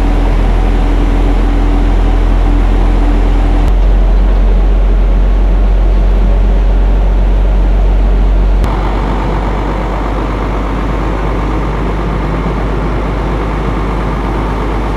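Large truck driving through deep floodwater: steady engine rumble with the rush of water churned up around it and wind on the microphone. The sound changes abruptly twice, about 4 and 9 seconds in.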